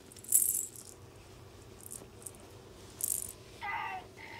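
Two short jingling rattles of a plastic cat-toy ball with a bell inside as a puppy knocks it about: one about half a second in, the loudest, and another around three seconds. A brief high squeak follows near the end.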